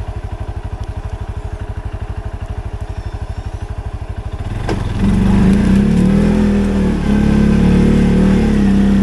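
CFMoto 520 ATV's single-cylinder engine idling with a rapid, even pulse, then revved hard about halfway through and held at high revs, with a short dip before it pulls again.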